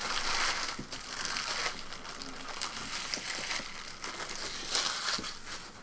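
Foil trading-card pack wrapper being crinkled and crumpled in the hands: a continuous crackly rustle with many small clicks, loudest at the start and again near the end.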